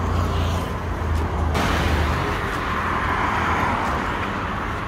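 Road traffic on a multi-lane road: a steady hiss of passing vehicles with a low rumble in the first two seconds, the hiss growing suddenly louder about a second and a half in.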